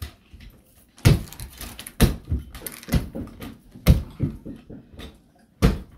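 Heavy footsteps of work boots thudding on carpeted stairs as a person climbs, about one dull step a second.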